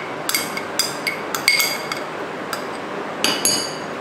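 Spoon and glass dishes clinking as they are handled and set down: a series of sharp clinks with brief ringing, the loudest about a second and a half in.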